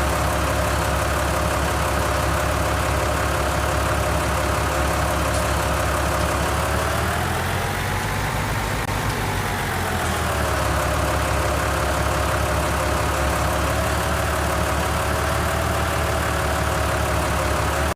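Engine of a heavy machine, a backhoe loader or farm tractor, running steadily; its pitch rises once about halfway through and then settles back.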